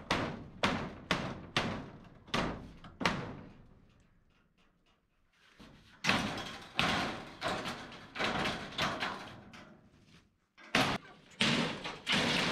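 Hammer blows on the back of nailed-on corrugated steel barn siding, driving the sheets outward to knock them loose. A run of sharp metallic bangs comes about every half second, then a pause of a couple of seconds, then another series of bangs.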